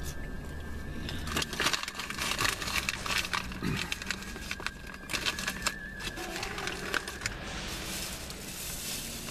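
Bag or wrapping rustling and crinkling as it is handled, with many short crackles throughout.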